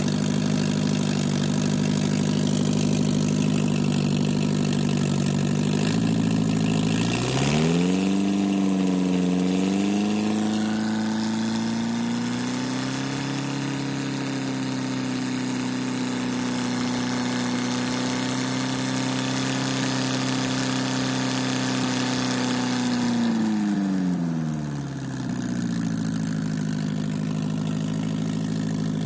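Freshly rebuilt MGA B-series four-cylinder engine running with no muffler, loud through an open exhaust. It idles, is revved up about six seconds in, held at a steady higher speed, then eased back down to idle near the end.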